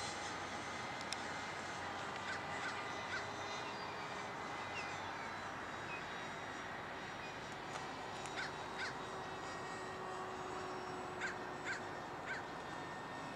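Steady whir of a 70mm electric ducted-fan model jet flying overhead. Short bird calls come in clusters of two or three: a few seconds in, again past the middle, and near the end.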